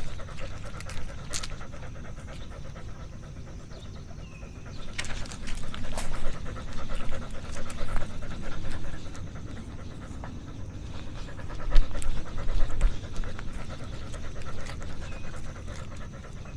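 A dog panting close to a camera strapped on its back, with scattered clicks and knocks. The panting grows louder for a few seconds twice.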